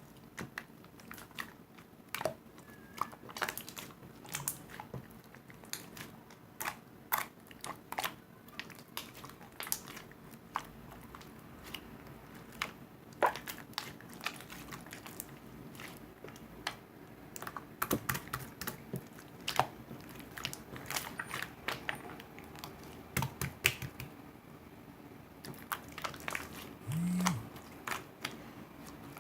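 Slime being pressed, poked and stretched by hand, giving irregular sharp clicks and small pops.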